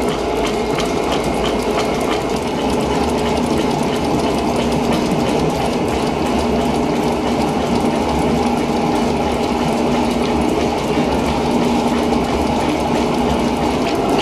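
1933 working-model Fourdrinier paper machine running: its gear trains, flat-belt pulleys and rolls make a steady mechanical clatter of rapid ticking over a continuous hum.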